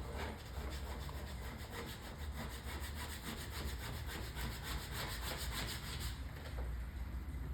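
A finger rubbing quickly back and forth along the edge of a vinyl stripe on a car's painted panel, pressing it down: an even scrubbing rhythm of several strokes a second that stops about six seconds in.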